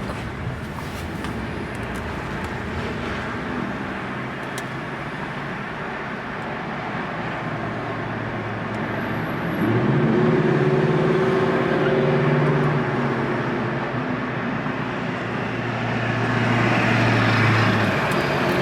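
Car driving: steady road and tyre noise from inside the cabin. About halfway through a low, steady engine hum comes in and holds, and the road noise grows louder near the end.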